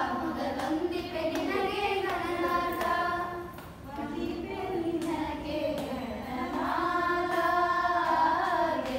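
A group of voices singing in Carnatic style, with long held notes that rise and fall and a short pause about four seconds in.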